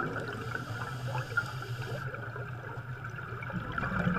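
Underwater bubbling and gurgling from rising air bubbles, a steady watery hiss.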